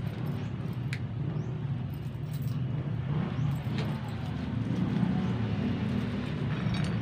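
Steady low mechanical rumble with a few light clicks.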